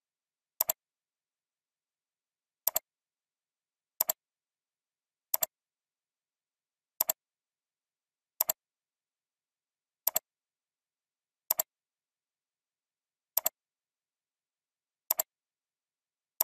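Computer mouse clicks, about ten in all, one every second and a half or so, each a quick double tick, with dead silence between.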